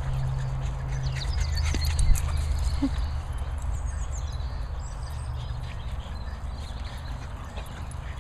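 Small dogs playing, with a quick run of taps and clicks from their paws and movement in the first few seconds, over a steady low hum.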